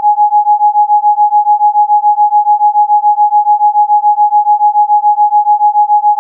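Electronically generated pure sine tone, a Rife frequency tone, held at one steady pitch and pulsing evenly in loudness about six times a second.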